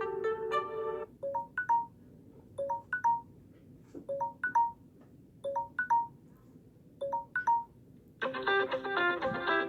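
Samsung Galaxy J7 Prime notification tone: a short chime of three quick notes, played five times about every second and a half. Before it, a brass-like ringtone ends about a second in; near the end, a guitar ringtone starts.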